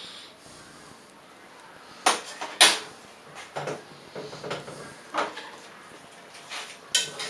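Kitchenware being handled on a stainless-steel counter: a series of sharp knocks and clatters of pots, lids and utensils, the loudest about two and a half seconds in.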